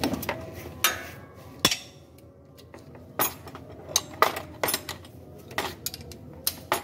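Sharp metallic clinks and knocks from a socket wrench and other hand tools being handled, about eight of them, irregularly spaced.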